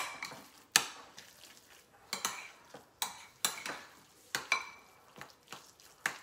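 A utensil stirring a thick shrimp-cake mixture in a bowl, clinking and scraping against the bowl's side about ten times at uneven intervals of half a second to a second.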